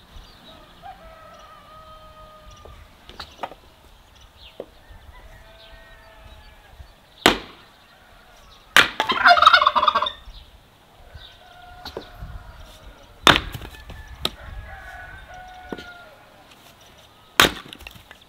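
Farmyard poultry calling, loudest as a rapid stuttering call about nine seconds in, with four sharp knocks spread through.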